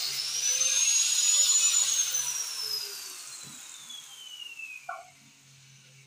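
Hand-held grinder whining at speed, then switched off, its pitch falling steadily as the disc coasts to a stop over about three seconds. A small metal knock comes near the end.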